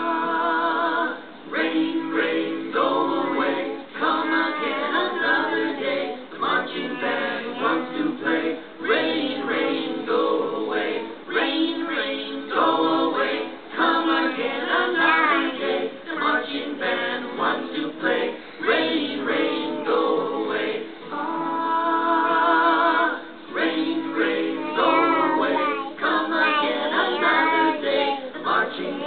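A small group of voices singing in harmony without clear words, with wavering held notes about a second in and again around twenty-two seconds in.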